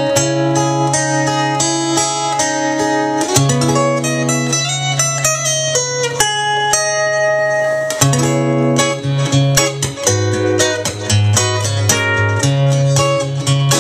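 Solo acoustic guitar fingerpicked: quick plucked melody notes ringing over held bass notes.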